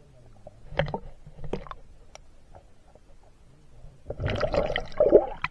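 Water splashing and sloshing in a rock pool, with a few light knocks in the first two seconds and a louder stretch of splashing from about four seconds in.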